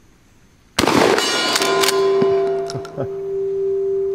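A 12-gauge pump shotgun fires a slug about a second in, and the struck steel gong rings on with a steady bell-like tone that slowly fades.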